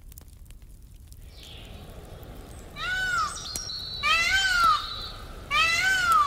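Peacock calling: three loud, pitched calls a little over a second apart, each rising then falling in pitch.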